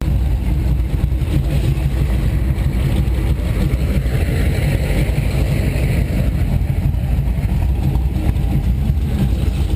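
T-bucket hot rod's open engine idling, a steady low rumble as the car creeps forward at walking pace.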